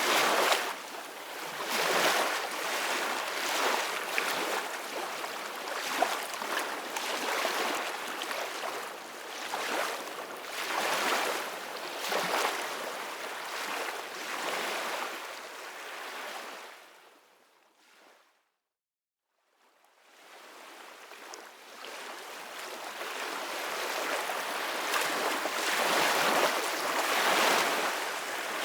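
Soft ocean waves washing onto the shore: a steady hiss of surf that swells and eases every second or two. About two-thirds of the way through it fades out to a second of silence, then fades back in.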